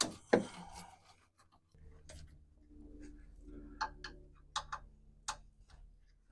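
Hand tools and a steel mounting plate being worked and bolted up under the truck: a sharp metallic knock at the start, then a few scattered clicks. A low steady hum comes in about two seconds in.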